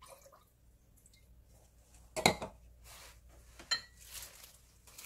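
Glassware knocking on a table: a knock about two seconds in, then a sharper clink that rings briefly about a second and a half later.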